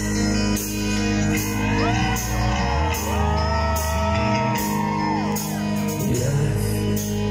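Rock band playing live: a drum kit keeping a steady beat under sustained electric bass and guitar notes. A singer holds long, gliding notes for a few seconds in the middle.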